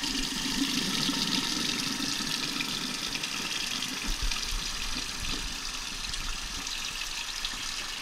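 Chrome bathroom sink faucet running, a steady stream of water splashing into the basin, shut off abruptly near the end.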